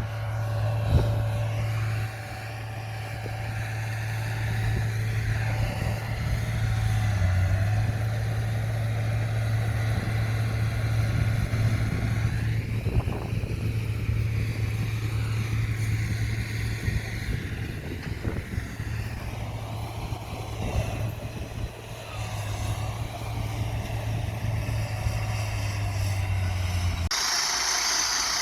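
Diesel engine of heavy earthmoving machinery running under load, a steady low hum with rough mechanical noise over it. Near the end the engine sound cuts off abruptly and a steady hiss replaces it.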